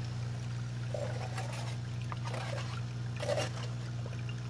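Homemade froth flotation cell running: a steady low motor hum from the agitator, with the aerated slurry bubbling and trickling over the lip. Three short splashes stand out at about one, two and a half, and three and a quarter seconds in, the last the loudest.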